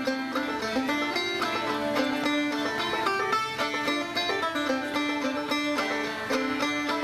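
Banjo and fiddle playing a bluegrass tune together: rapid picked banjo notes under a bowed fiddle melody.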